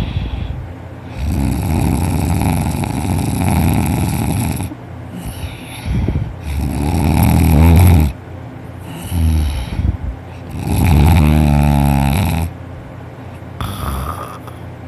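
A person asleep on their back with the mouth open, snoring heavily: a run of loud snores lasting one to three seconds each, with short breaks between them and a vibrating rattle in some breaths.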